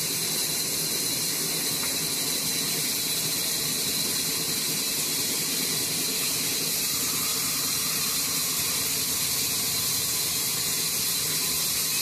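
Large vertical band saw ripping a wooden log slab as it is fed through the blade: a continuous hiss with a steady high tone that holds the same level throughout.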